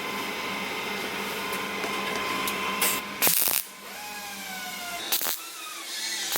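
Welder laying short tack welds on steel body panel: a few brief, loud crackling bursts of a fraction of a second each, over a steady hum that stops about halfway through.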